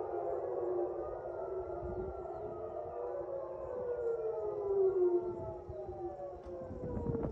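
Civil defense air raid sirens wailing, several overlapping at different pitches, their tones slowly falling. They warn of an incoming missile attack.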